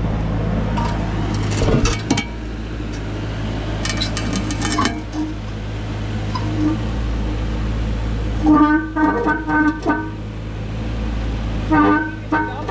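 A heavy machine's diesel engine runs steadily with a low hum, with scattered knocks and scrapes. Short choppy runs of pitched, horn-like tones come about two-thirds of the way in and again near the end.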